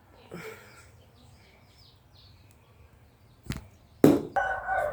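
Faint bird chirps, then two sharp knocks about three and a half and four seconds in, followed by a dog starting to whine.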